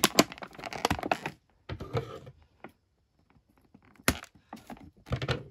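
Clicking and crackling of stiff plastic doll packaging being handled to free the doll. A dense run of clicks and rustles fills the first second or so, then a lull, then a sharp click about four seconds in with a few more after it.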